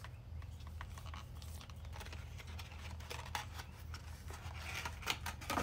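Plastic packaging rustling and clicking as a model railroad hopper car is taken out of it by hand, over a steady low hum.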